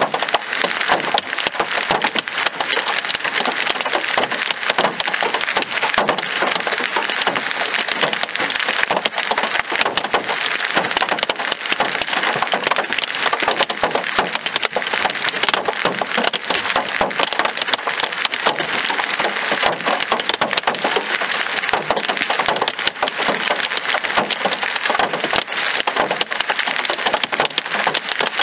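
Large hailstones, golf-ball to tennis-ball size, pelting hard surfaces with rain: a dense, unbroken clatter of countless sharp impacts.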